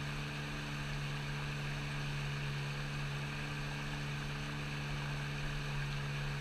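A motor running steadily: a constant low hum with a few overtones and a layer of hiss, unchanging throughout.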